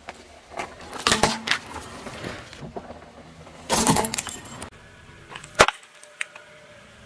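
Car tyre rolling over plastic toys and sweet packets on asphalt, crushing them: a few sharp cracks about a second in, a crunching cluster near four seconds, and one loud snap a little later.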